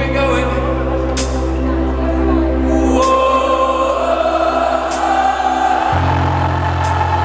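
A live band recorded from the crowd on a phone: low keyboard chords held and changing every few seconds, a cymbal crash about every two seconds, and singing.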